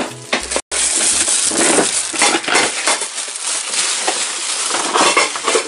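Clear plastic packaging crinkling and rustling as hands pull open a toy drum's wrapping, with a brief dropout under a second in.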